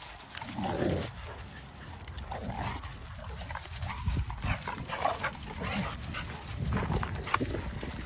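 Two dogs in rough play, one a Cane Corso, giving short vocal noises now and then.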